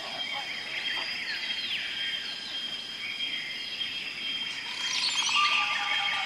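Weaver birds chirping over a steady high insect drone, with a flurry of chirps about five seconds in. Near the end a steady pitched tone sets in.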